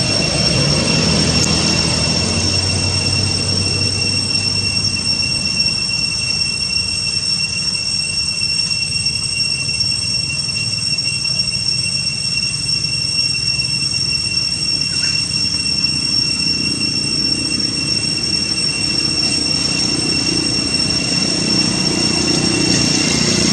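Cicadas droning in a steady, high-pitched chorus that holds one pitch throughout, over a low background rumble.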